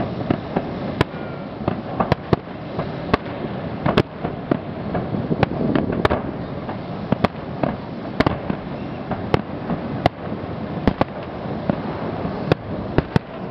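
Aerial fireworks shells bursting in quick, irregular succession: many sharp bangs, one or two a second, over a continuous low rumble.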